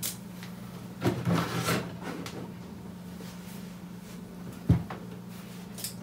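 Handling noise from a curved monitor being tilted and turned on its stand: a scraping rustle about a second in, then one sharp knock, over a steady low hum.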